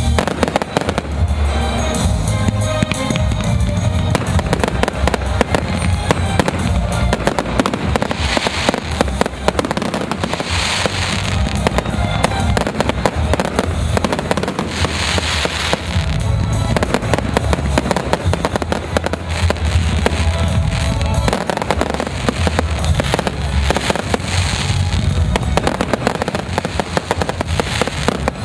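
Consumer fireworks display going off densely, with rapid bangs and crackling that never let up. Music plays underneath.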